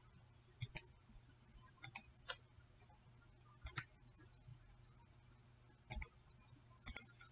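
Computer mouse clicking, faint: short sharp clicks that come mostly in quick pairs, about five groups spaced a second or two apart.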